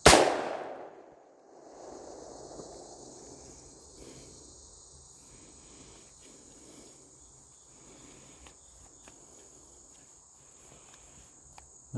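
A single shotgun shot, a sharp crack whose echo fades over about a second, followed by insects, crickets, droning steadily in a high, even hum.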